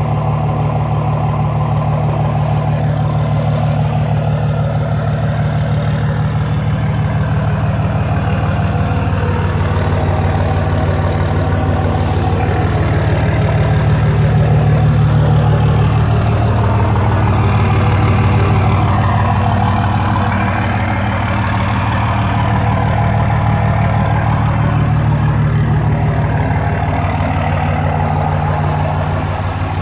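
2004 Dodge Ram's 5.9 L Cummins inline-six turbodiesel idling steadily, running on its newly replaced injectors.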